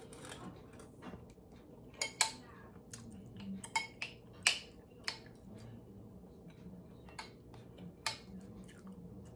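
Metal spoon clinking and scraping against a glass bowl as food is scooped up, a string of sharp separate clinks with the loudest about two seconds in and halfway through.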